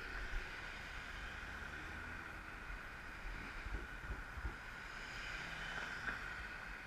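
Steady wind and road noise from riding along a street, heard through an action camera, with a few low thumps about three to four and a half seconds in.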